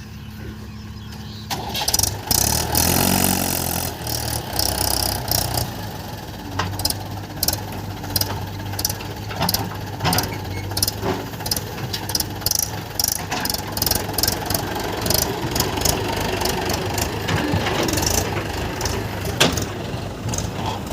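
Heavy diesel engine running low, then revving up sharply about two seconds in and running on under load, with many sharp clicks and knocks over it.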